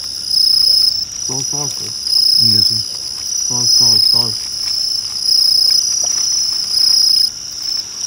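Crickets trilling loudly in a shrill chorus that comes in pulses of about half a second to a second, one after another. Low voices sound briefly underneath in the first half.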